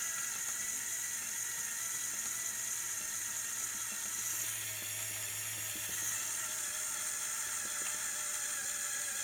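Lego Technic medium motor whirring steadily through a train of small gears, driving four small linear actuators to lower the model car's suspension.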